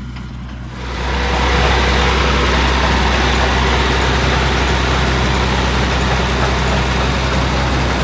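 Massey Ferguson tractor engine running steadily up close while pulling a John Deere 330 round baler, quieter at first and loud from about a second in.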